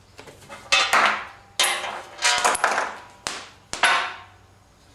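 About half a dozen irregular sharp metal clanks with short ringing tails: a hammer striking the tractor's steel seat pan.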